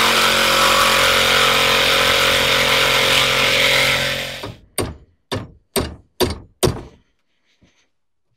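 A Sawzall reciprocating saw running and cutting through the old engine/transmission mount for about four seconds, then stopping. Then five sharp hammer strikes, about half a second apart, knocking the cut mount open.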